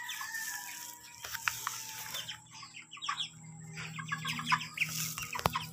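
A flock of young broiler chickens calling in their pen: many short peeps and clucks overlapping. A single sharp knock comes near the end.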